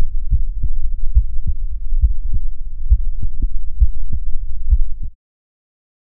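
Human heartbeat picked up through a stethoscope chest piece with a microphone, placed at Erb's point. Low lub-dub pairs come about 70 times a minute over a steady low rumble, and cut off suddenly about five seconds in.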